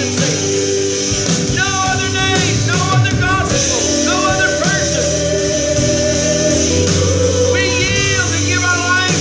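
Worship music: a voice singing a slow, wavering melody over a steady instrumental backing.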